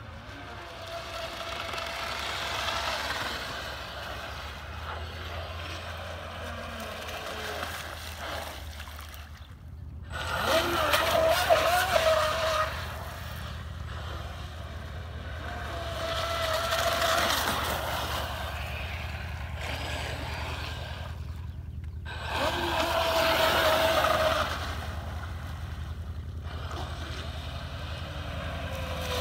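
Pro Boat Stiletto 29 RC catamaran running on the water, its brushless motor whining with a hiss of spray. The whine swells and fades several times and is loudest about ten to twelve seconds in.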